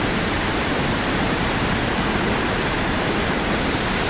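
Mountain creek rapids and small falls rushing steadily, a dense even roar of white water.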